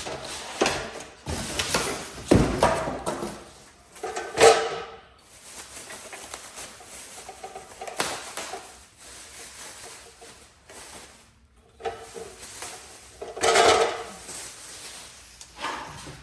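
Unboxing handling noise: cardboard and broken styrofoam packing knocking, scraping and rustling as the abrasive chop saw is handled in its box, in irregular bursts with a few loud knocks.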